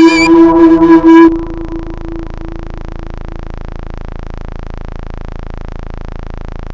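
End of an electronic dubstep track: the full loud mix cuts off abruptly about a second in, leaving one held synth note that fades away over the next couple of seconds. A steady, even noise then carries on at a lower level.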